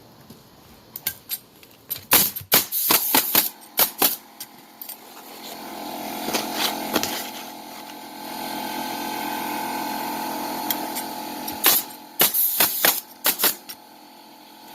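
Roofing nail gun firing a quick run of sharp shots into shingles about two seconds in, and another run near the end. Between them a steady mechanical hum runs for several seconds.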